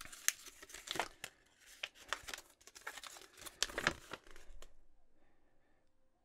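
A folded paper deck guide being unfolded by hand: paper crinkling with sharp crackles, stopping about four and a half seconds in.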